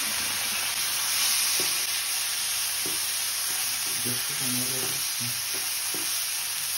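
Broccoli stir-frying in a nonstick frying pan: a steady sizzle, with a wooden spatula tossing and scraping the pieces in a few soft knocks.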